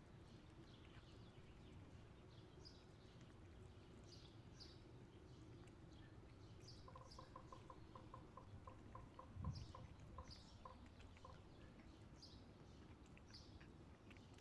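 Faint background of songbirds chirping, with a quick run of repeated pitched notes midway. A single low thump comes about nine and a half seconds in.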